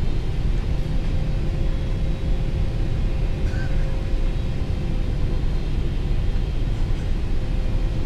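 Steady low cabin rumble inside a Boeing 777-300ER airliner descending on approach: engine and airflow noise with a faint steady hum.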